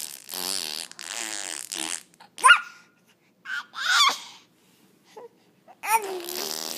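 Eight-month-old baby making noises: two raspy, buzzing stretches, then two sharp high squeals, one rising about two and a half seconds in and one falling about a second later, and a drawn-out babble near the end.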